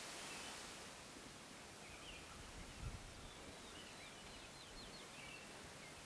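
Faint outdoor ambience with a steady hiss and distant small birds chirping, including a quick run of short chirps about four to five seconds in. A soft low thump about halfway through.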